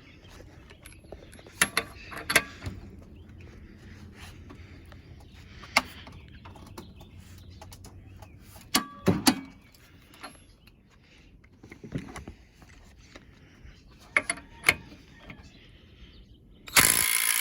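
Scattered clicks and knocks of tools being handled, then near the end a cordless Bauer 3/8-inch impact wrench fires up loudly, hammering for about a second to break loose a bolt torqued to 175 foot-pounds.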